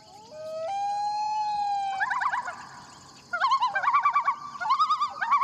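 Emergency vehicle sirens: a steady wailing tone, then from about two seconds in a fast warbling yelp, which gets louder after about three seconds.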